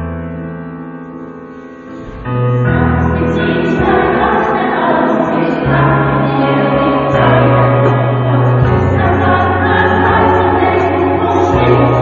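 Piano chords are held and fade away, then about two seconds in a choir comes in, singing with piano accompaniment.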